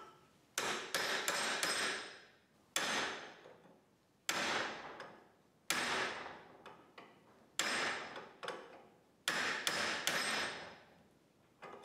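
Hammer blows on a steel punch driving the old bushing's cut metal sleeve out of a leaf spring eye. There are about ten sharp metallic strikes at irregular intervals, some in quick pairs, and each leaves a ringing tail.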